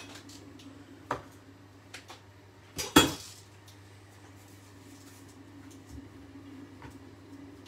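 Kitchen clatter: one loud, sharp clack about three seconds in, a hard object knocked against cookware or the worktop, with a few lighter knocks around it. A steady low hum runs underneath.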